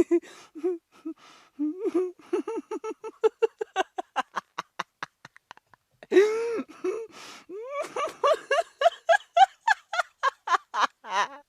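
A woman laughing in long bouts of quick, pulsed "ha-ha" bursts, several a second, with a sharp breathy intake about six seconds in. The laugh climbs in pitch through the second bout.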